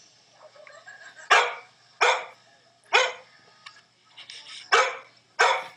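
A dog barking: five sharp single barks at uneven intervals, three in the first three seconds and two close together near the end.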